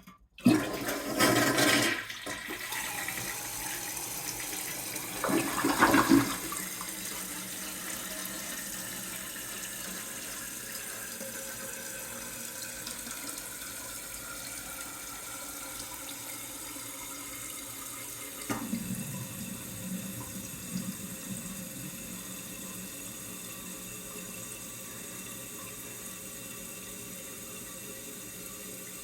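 Toilet flushing: a loud rush of water with a second surge about five seconds in, then the steady hiss of the tank refilling.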